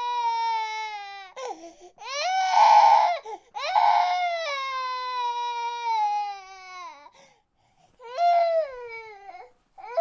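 Baby crying in a string of long wails, each falling in pitch toward its end and broken off by a quick gasp for breath. There is a short lull about seven seconds in before the crying starts again.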